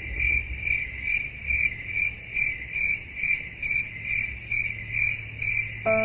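Cricket chirping: an even, high chirp repeating a little over twice a second over a low rumble.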